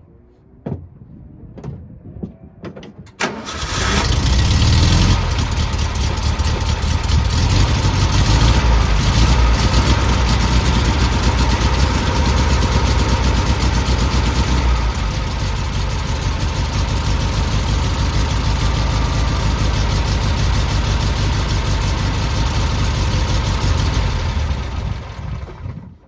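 A few clicks, then a VW Beetle's air-cooled flat-four engine starts about three seconds in, runs louder for a moment, and settles to steady running. It is stopped just before the end. The engine is being run to test a freshly adjusted clutch with the wheels spinning.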